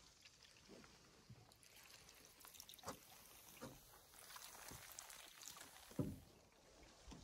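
Faint canoe paddling on calm water: quiet paddle strokes and drips, with a dull knock about six seconds in.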